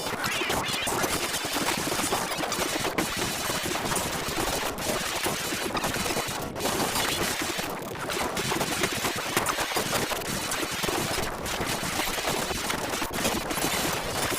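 Heavily distorted, glitched sound effect: a harsh, dense crackling noise at a steady loud level, like rapid-fire cracks.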